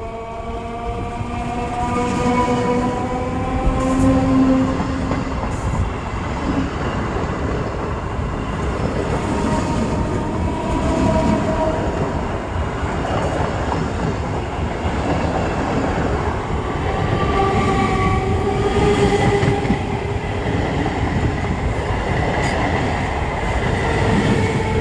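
An EMU electric local train passing close by at speed: the loud, continuous rush and rattle of wheels on rail and coaches going by. A whine with several tones rises in pitch over the first few seconds as the train approaches.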